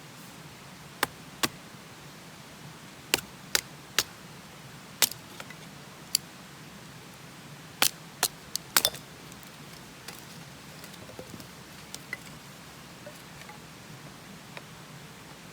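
About a dozen sharp, short clicks and knocks at uneven intervals, bunched in two clusters, over a faint steady low hum.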